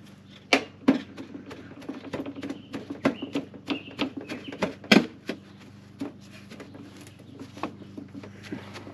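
Hands working ceramic packing material into a cut-open Flowmaster muffler case: scattered irregular clicks, taps and rustles, with a sharper knock about five seconds in.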